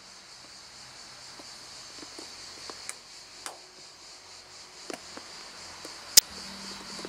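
Plastic clicks from a Toyota Corolla roof grab handle being worked by hand: a few small clicks, then one sharp, loud click near the end as a clip snaps into place.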